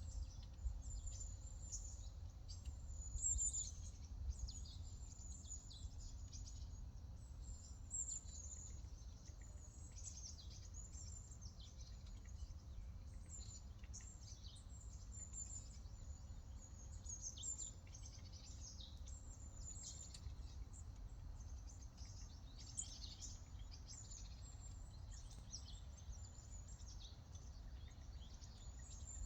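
Several small birds chirping and twittering in quick, high calls, overlapping throughout, over a faint low steady rumble.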